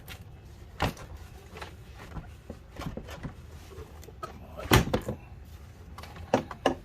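A few separate clunks and knocks as the hood of a BMW X5 is released and lifted by hand. The loudest clunk comes nearly five seconds in, and two quick knocks follow close together near the end.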